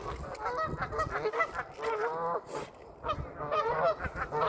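Geese honking repeatedly, several calls overlapping, with one longer call around the middle.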